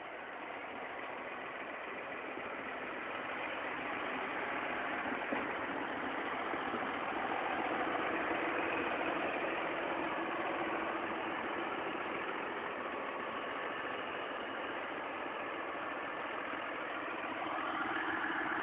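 John Deere 6930 tractor's six-cylinder diesel engine running at idle, a steady hum that grows louder over the first several seconds.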